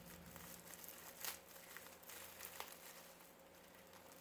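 Faint crinkling of a plastic bag being handled and pulled at by hand while it is being opened, with a few scattered small clicks.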